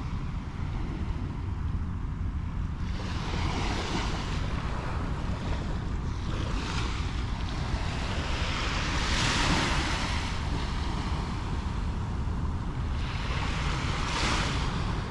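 Surf washing onto a sandy beach, the hiss of a wave swelling and fading three times, about every five seconds, over a steady rumble of wind on the microphone.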